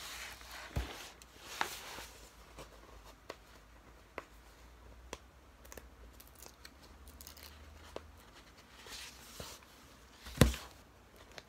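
A rolled diamond-painting canvas being handled and unrolled: soft rustling of the canvas with scattered small clicks and taps, and one sharp knock near the end.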